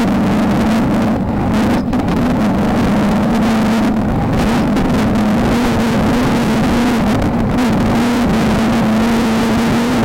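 Off-road race car engine running at steady high revs, its pitch wavering only slightly, over a constant wash of road and wind noise.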